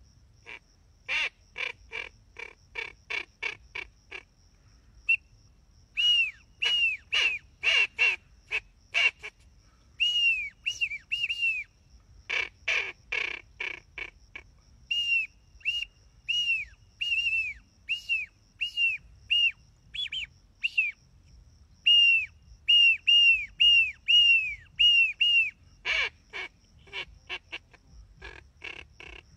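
Reyoka duck call blown to imitate a Eurasian wigeon's whistle: runs of short whistles, many dropping slightly in pitch, about two or three a second, broken by brief pauses.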